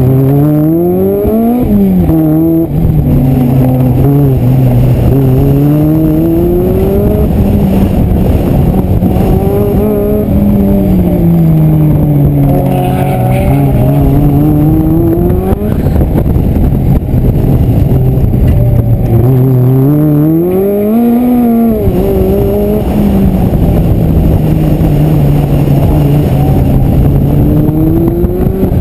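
Engine of an open-top roadster driven hard on a cone course, heard from the cockpit. The revs climb and fall again and again as the car accelerates and slows through the turns, with sudden drops in pitch as the throttle is lifted, once near the start and again about two thirds of the way through.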